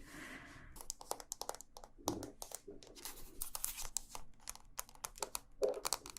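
Close-up crinkling and crackling of something handled near the microphone: a rapid, uneven run of dry crackles.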